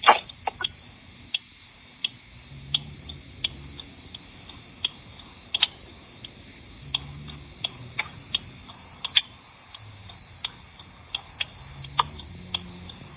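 Clicking like a metronome, heard over a telephone line in a voicemail: sharp clicks about once every 0.7 seconds, with a louder click at the very start.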